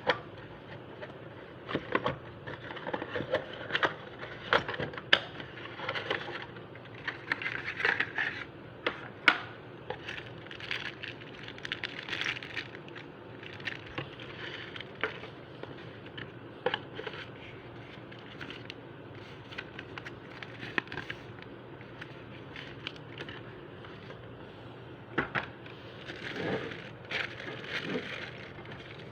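Packaging of a brake caliper being handled and opened: irregular rustling, crinkling and sharp clicks, with a quieter stretch about two thirds of the way through.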